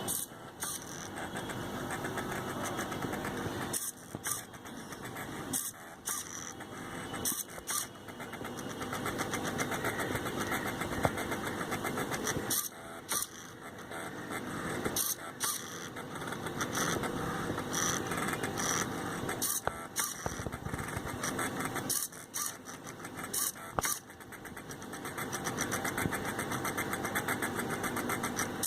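Stepper motors of a homemade CNC machine driving its axes, a buzzing whir in runs of a few seconds with short pauses and clicks between moves.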